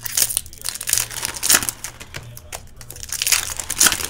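Wrappers of 2018 Upper Deck Goodwin Champions trading card packs crinkling and tearing as the packs are opened by hand, in irregular scratchy rustles with a few sharp clicks.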